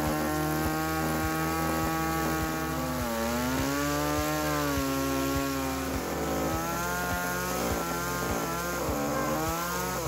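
Small Echo two-stroke top-handle chainsaw cutting through a log, its engine note sagging as the chain loads up in the wood about three seconds in and climbing again around six seconds, then dipping and rising once more near the end. Background music with a steady beat plays underneath.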